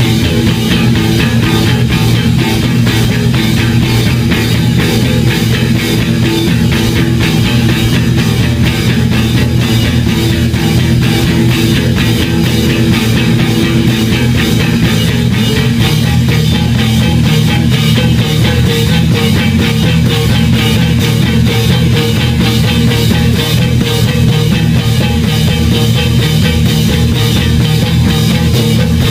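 Live rock band playing loud, with distorted electric guitars, electric bass and a drum kit driving steady, dense drumming and cymbals. A held note drops out about halfway through.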